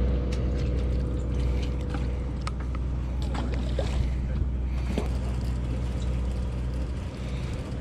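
Fishing boat's engine running with a steady low drone, with scattered light knocks and clicks on deck.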